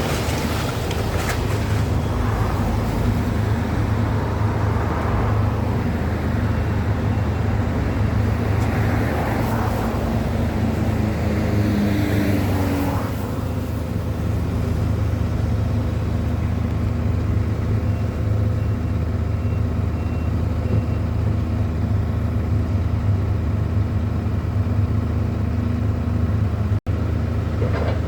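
Street traffic: a steady low engine hum, with a few vehicles passing in the first half. The sound cuts out for an instant near the end.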